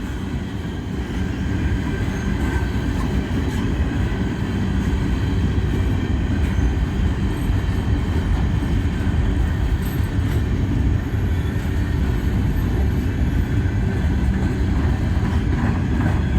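Empty coal train's cars rolling past on the main line: a steady rumble of steel wheels on rail, with a thin, steady high squeal from the wheels.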